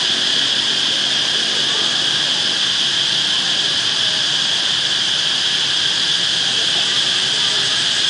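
A deafening chorus of many cicadas in the trees: one steady, shrill drone centred high in pitch, with no break or rise and fall, loud enough to pass for microphone feedback.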